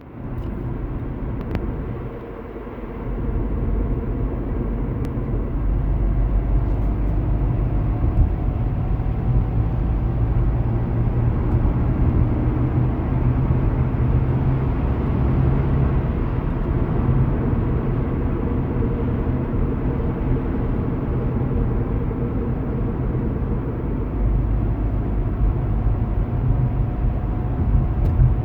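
Cabin noise of a 2008 Honda Accord manual coupe on the move: a steady low road and drivetrain rumble, with a faint tone drifting slowly in pitch above it. This is the faint grinding the owner cannot explain, a noise that goes away whenever he presses the gas or the brake, or takes a corner.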